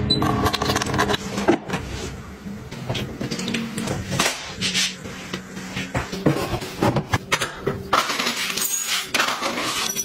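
Close-up handling sounds: a string of clicks, knocks and light clatters as plastic containers and raised pet bowls are picked up and set down.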